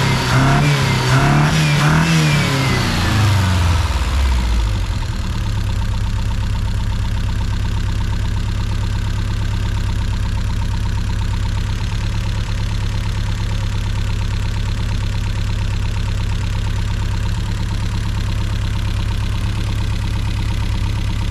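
Warm 1975 Triumph Spitfire 1500 four-cylinder engine, revved by hand at the throttle linkage: the revs rise and fall a couple of times, drop back about four seconds in, and then settle to a steady idle.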